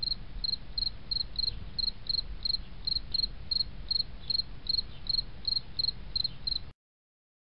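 Insect chirping, cricket-like, in a steady rhythm of about three short chirps a second at one high pitch, over a low rumble. It stops abruptly near the end.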